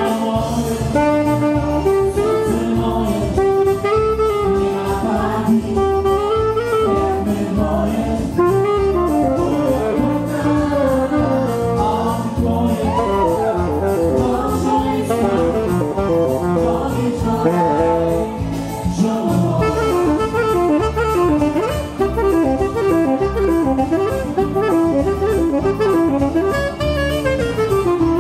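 A band playing a tune, with a saxophone carrying the melody over keyboard accompaniment and a steady beat.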